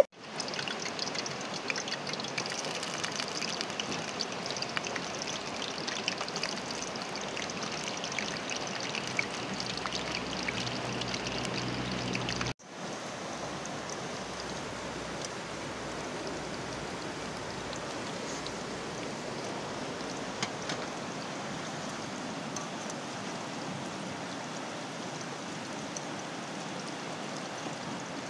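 Steady rush of a creek's running water. It breaks off for an instant about twelve seconds in and resumes a little quieter.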